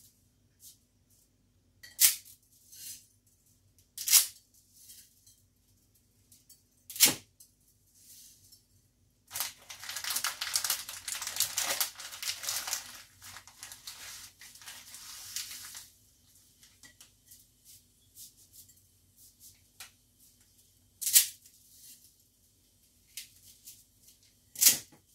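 Dry spaghetti snapping by hand into a bowl: five sharp cracks a few seconds apart. In the middle comes about six seconds of plastic packaging crinkling.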